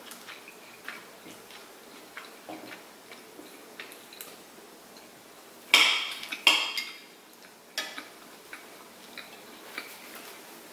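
Forks and spoons clinking and scraping on plates as two people eat, with light scattered ticks and two louder, ringing clinks a little past halfway, then one more soon after.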